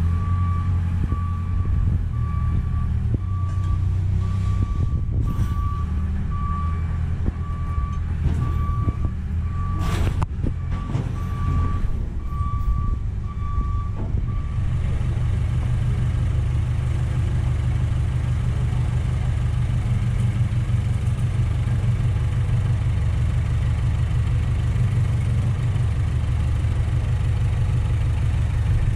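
A heavy vehicle's engine running steadily under load while its reversing alarm beeps at an even pace. The beeping stops about halfway through and the engine keeps running. A sharp clank or hiss cuts through about ten seconds in.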